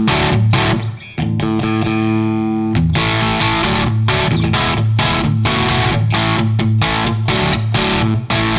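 Electric guitar played through a KOR Oracle overdrive/distortion pedal, its tone very open on top: a strummed chord rings out for a moment about a second in, followed by a rhythmic, choppy strummed chord pattern.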